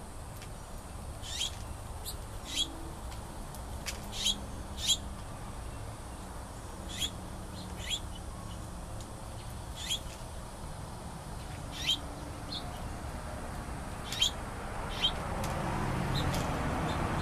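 A bird giving short, sharp chip calls, about a dozen of them at uneven intervals of roughly one to two seconds, over steady outdoor background noise. A low broad rumble swells near the end.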